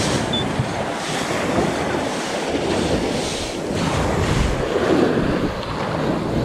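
Ocean surf breaking and washing in, with wind rushing over the microphone.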